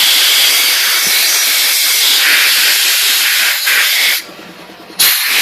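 Compressed air hissing from a nozzle as it blows out freshly cleaned air-compressor parts. One long, loud blast cuts off about four seconds in, and a second blast starts near the end.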